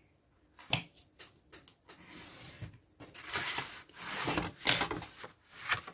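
Cardstock being folded up against the edge of a clear acrylic ruler: a sharp click a little under a second in and a few light ticks, then rustling and scraping of the stiff paper as it is bent and pressed along the ruler.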